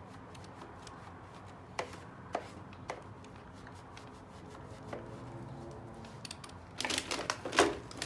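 A few light clicks and taps as a cloth wipes the plastic underside of a robot vacuum, then, from about seven seconds in, a louder run of knocks and paper crinkling as the robot is turned back over onto kraft paper.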